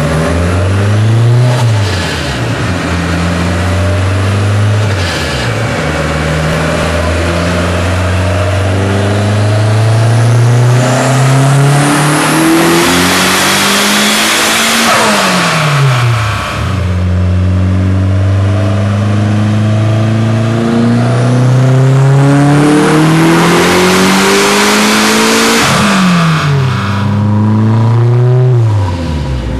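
Turbocharged 4G63 four-cylinder of a 2G Mitsubishi Eclipse AWD with an FP3065 turbo, run on pump gas on a chassis dyno. After a couple of short revs it makes two full-throttle pulls, each climbing steadily in revs to a loud high-rpm roar before the revs fall away as the throttle closes.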